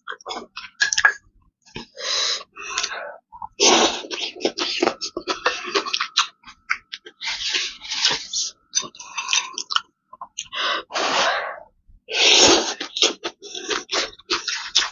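Close-miked eating of spicy Korean noodle soup: repeated slurps and chewing, with quick clicks of chopsticks against the bowl in between.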